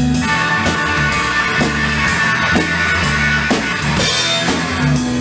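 Rock music: electric guitar chords over bass and a drum kit, with drum hits about twice a second.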